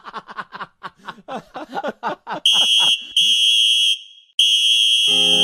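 A cartoon voice chattering rapidly, then a referee's whistle blown three times, two short blasts and a long one: the full-time whistle. Piano music comes in near the end.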